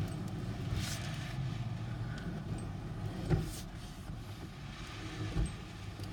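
Steady low mechanical hum, with a few short knocks about a second in and again about three seconds in.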